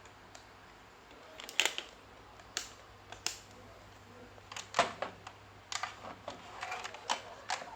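Scattered sharp clicks and light knocks, about eight spread unevenly over several seconds, from hands and tools handling the parts of an opened LCD TV during disassembly.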